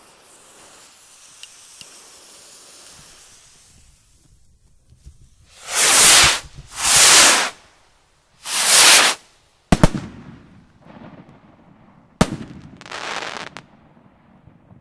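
Weco 'New Revolution' 65-gram skyrockets fired one after another: three loud whooshing rushes of about a second each as they lift off, then two sharp bangs as they burst. A shorter rush of noise comes near the end.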